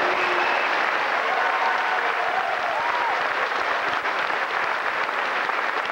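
Audience applauding steadily in a large hall, with a few faint voices heard over the clapping.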